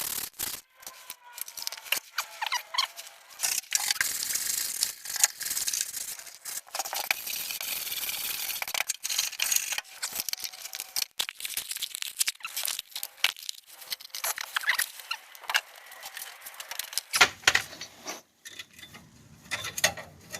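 Irregular hand scraping and rubbing strokes, mostly high-pitched, with many small clicks and rattles mixed in.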